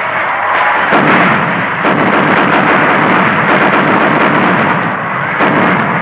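Fireworks going off: a dense, continuous crackle of pops and bangs from burning set-piece fireworks, with sharper reports scattered through it.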